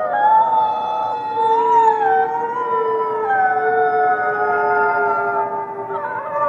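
A chorus of many wolves howling together: several long howls overlap at different pitches, each held and gliding slightly up and down.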